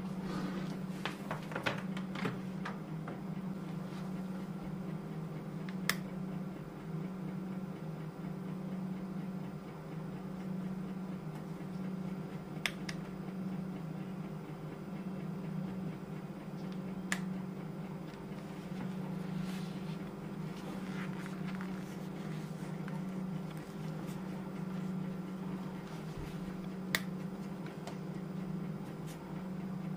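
A few sharp, single clicks, about four spread several seconds apart, from hands handling an ASUS ROG Delta S gaming headset, over a steady low hum.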